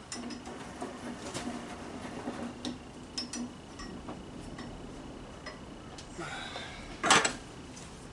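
Light metallic clicks and rattles as a table saw's blade is tilted back to 90 degrees, with a louder metal clank about seven seconds in.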